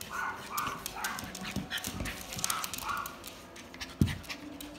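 Small dogs play-fighting: several short vocal noises from the dogs over the scuffle of their paws and claws on a wooden floor, with a loud thump about four seconds in.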